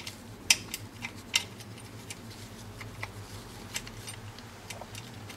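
Scattered small metallic clicks and taps of a screw and small parts being handled and fitted at the cable housing on an automatic transmission case, the two sharpest about half a second and a second and a half in, over a steady low hum.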